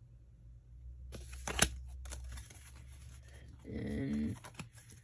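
Pokémon trading cards being handled at a desk: small clicks and rustles, with one sharp click about a second and a half in. A short voice-like sound comes near the end.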